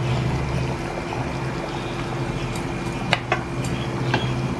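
Thick masala gravy bubbling in a nonstick pan as paneer cubes are tipped in, over a steady low hum. A few light clicks of a utensil against the pan come about three to four seconds in.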